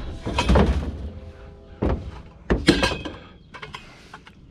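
Scrap metal being shifted and dropped in a truck bed while loading: heavy clanks and thuds about half a second in and again around two and a half seconds in, with the metal ringing briefly after them, and a few lighter knocks near the end.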